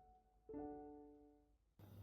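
Quiet, soft piano background music: a single note or chord struck about halfway in and fading away. Near the end the music gives way to faint room sound.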